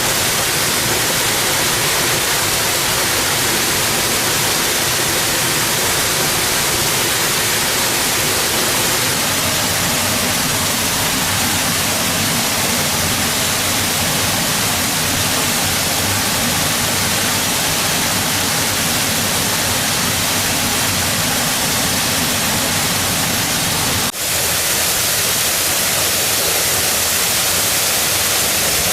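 Waterfall: a steady, loud rush of falling water, with a brief break in the sound near the end.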